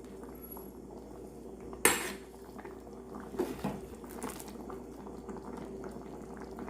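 A utensil knocking and clinking against a cooking pot a few times, the sharpest knock about two seconds in, over the steady bubbling of a thickened stew of ham, hotdog and potato at a simmer.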